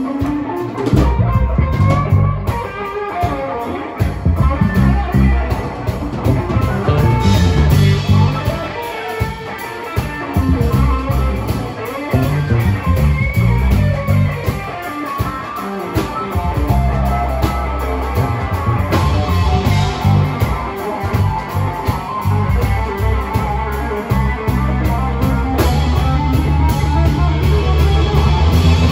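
Live band playing an instrumental passage: electric guitars over a drum kit, with no singing.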